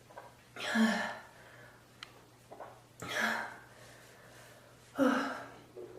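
A person coughing, three single harsh coughs about two seconds apart, over a faint steady low hum.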